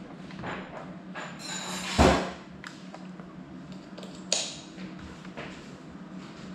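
Scattered clicks and knocks over a steady low hum, with a louder thump about two seconds in and a sharp knock a little over four seconds in.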